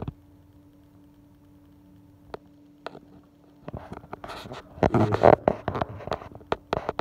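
A steady low hum with two faint clicks, then from about halfway a louder run of rustling and scraping noise, loudest around five seconds in.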